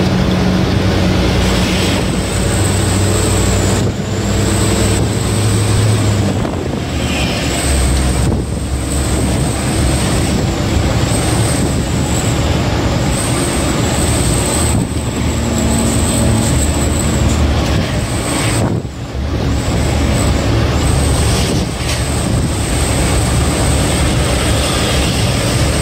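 Diesel truck engine running under way, heard from inside the cab, with steady road and wind noise. The engine note drops about six seconds in.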